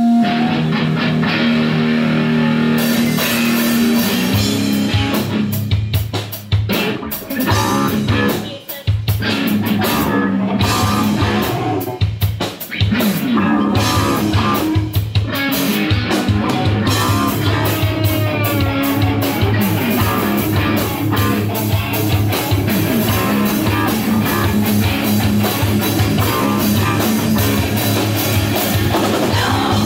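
Live rock band playing an instrumental passage through amplifiers: electric guitars, electric bass and drum kit. The band plays in stop-start hits with short breaks in the first half, then settles into a steady driving groove.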